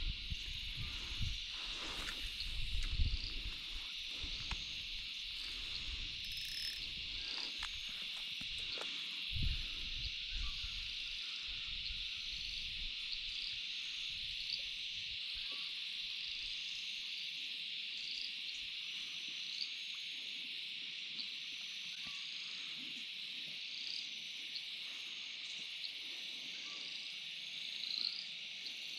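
A chorus of cicadas making a steady, shrill, unbroken drone, with a few low thumps in the first ten seconds.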